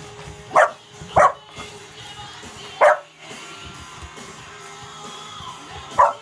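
Springer Spaniel puppy barking in four short, sharp yips: two in quick succession, one more about a second and a half later, and a last one near the end, as it plays at a small fish. Background rock music with guitar runs underneath.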